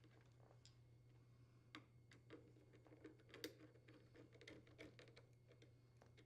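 Faint, scattered clicks and light taps of a screw and hand tool against the refrigerator's metal frame as the power cord's retaining clamp is screwed down, over a low steady hum.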